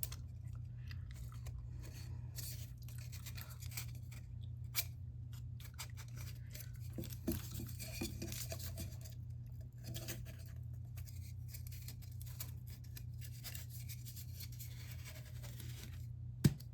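Faint handling noises of a model rocket being assembled by hand: scattered light clicks, scraping and rustling of small parts, over a steady low hum.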